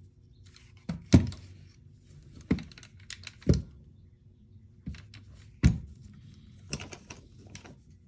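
Scattered clicks and knocks of an airsoft M4 rifle's parts being handled and worked apart, about ten separate sharp taps at irregular intervals, the loudest a little after one second and near the middle.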